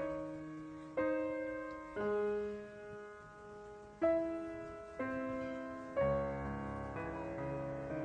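Slow, gentle solo piano background music, a new note or chord struck about once a second and left to fade.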